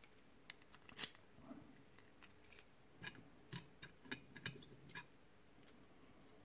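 Faint, irregular light clicks and taps from a thin lock shim being handled and worked into the back of a lock cylinder, with the clicks dying away near the end.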